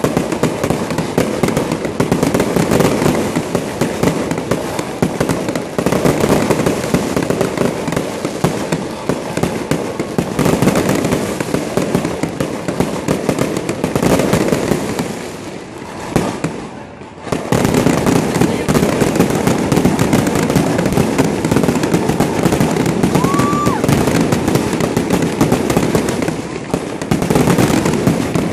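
Aerial fireworks display: shells bursting in a dense, continuous crackle and banging, with a brief lull a little past halfway.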